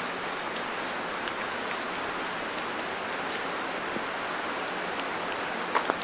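Steady hiss of rain falling, with scattered faint drop ticks and two sharp clicks near the end.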